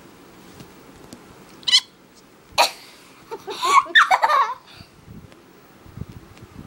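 A few short vocal sounds with bending pitch, laughter-like, in the middle, just after a sharp knock.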